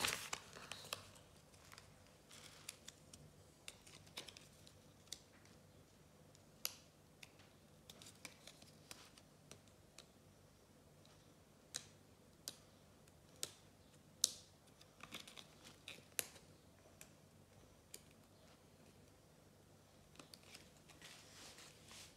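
Faint, scattered ticks and rustles of a paper Panini football sticker being handled and peeled from its backing, with a few sharper clicks in the middle.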